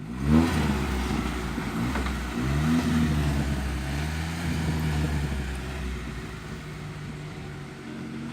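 Off-road vehicle's engine revving up and down several times under load, then dropping back toward the end.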